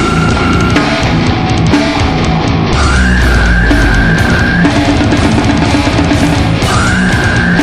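Extreme metal music: heavily distorted guitars over dense, fast drums, with a high held lead tone that slides up and holds, twice.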